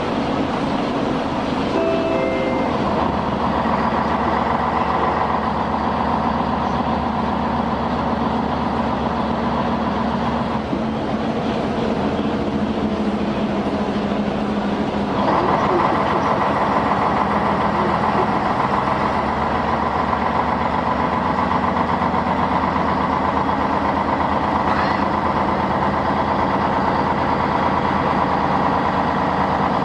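Jelcz 120M city bus heard from inside the cabin while under way: the engine and drivetrain run steadily under road noise. A few brief tones sound about two seconds in, and the engine note grows louder about halfway through.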